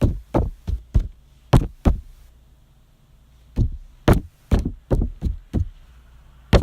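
About a dozen sharp taps on a tabletop, a few a second in two runs with a pause of about a second and a half between them, made while counting off the days of October on a calendar.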